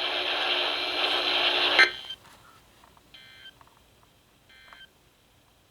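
Weather radio hiss for about two seconds, cutting off sharply. Then two short bursts of warbling EAS data tones come about a second and a half apart: the end-of-message code that closes the alert broadcast.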